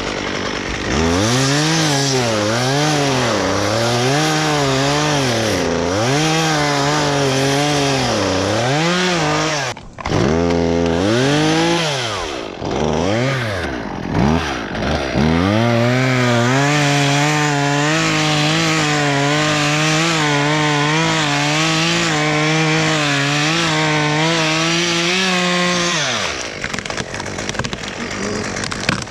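Chainsaw cutting wood, its engine pitch dipping and recovering about once a second, then dropping off briefly and blipping a few times. From about sixteen seconds in it holds a steady high rev through a long cut, then falls away near the end.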